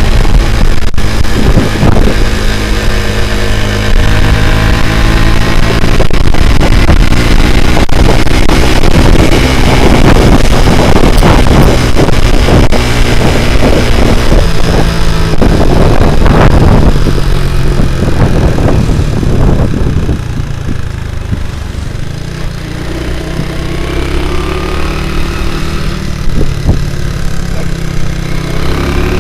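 Motorcycle with a Honda Grand single-cylinder four-stroke engine running under way, revving up and easing off, with loud wind and road noise. About 20 seconds in it drops to a quieter, lower steady note, then the engine pitch rises again near the end as it accelerates.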